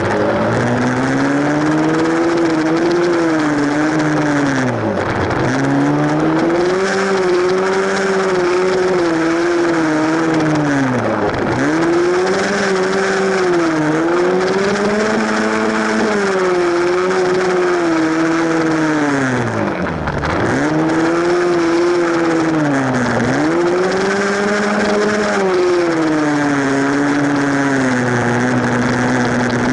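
A single-cylinder four-stroke dirt bike engine heard close up from the rider's position, revving up and down with the throttle through the ride. Four times its pitch drops sharply as the throttle closes, then climbs again.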